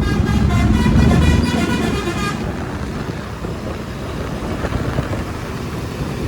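A bus's telolet horn, a multi-trumpet musical air horn, playing a run of changing notes for about two and a half seconds over the bus's engine rumble, which fades as the horn stops, leaving road noise.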